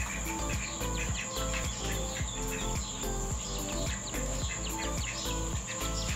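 Ducklings peeping: many short, high, falling notes. Under them run background music with a steady low bass line and a steady high-pitched insect-like whine.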